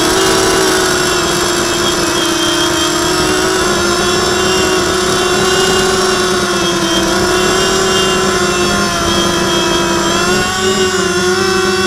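Motors of a radio-controlled FPV model running steadily at speed, heard from its onboard camera. The pitch wavers with the throttle and shifts about ten seconds in.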